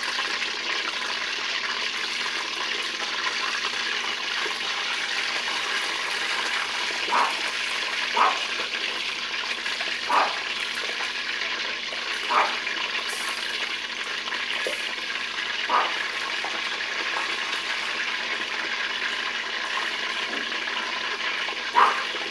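Pieces of pork leg sizzling as they are lowered one by one into hot lard in a thick aluminium pot, a steady hiss of deep-frying while each piece is held in the tongs to sear so it does not stick. About six short sharp clicks sound through it.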